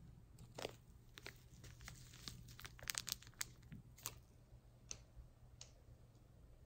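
Soft, irregular crinkling and crunching, with a cluster of sharper crackles about three seconds in.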